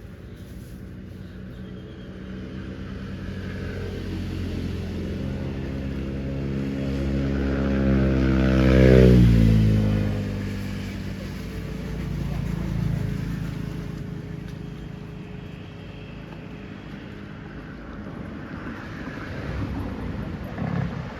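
A motor vehicle passing close by: its engine grows louder, is loudest about halfway through, and drops in pitch as it goes past, then fades away.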